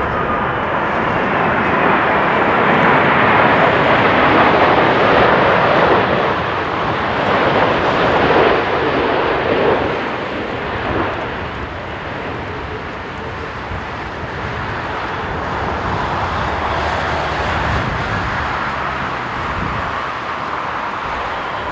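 ANA Boeing 787-8 Dreamliner's Rolls-Royce Trent 1000 jet engines on final approach: a loud jet rumble with a faint falling whine. It is loudest as the airliner passes close by, about three to nine seconds in, then eases off.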